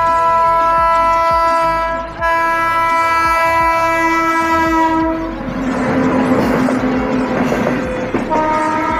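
Electric locomotive passing at a level crossing: a long horn blast, broken briefly about two seconds in, then the loud rush and wheel clatter of the locomotive and coaches going by, with the horn sounding again near the end.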